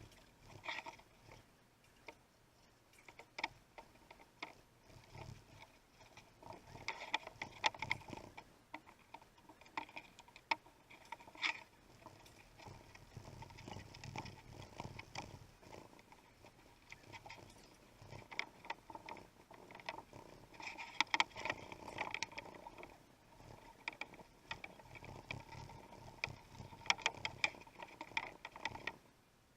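Irregular light taps, clicks and scraping rustles, with no power tool running.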